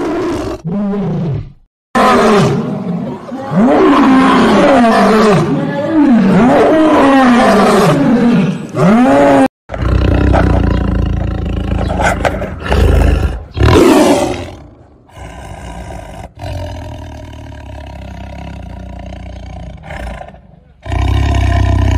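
Big cats roaring and snarling in a string of short clips joined by abrupt cuts. The first part is a run of rising-and-falling calls. In the second part a tiger snarls and growls deeply with its mouth open.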